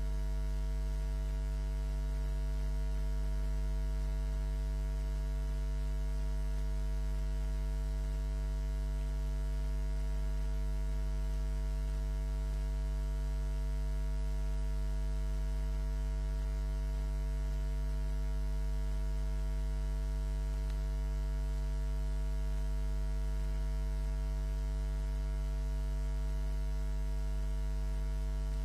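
Steady low electrical mains hum with a stack of higher overtones, unchanging in pitch and level.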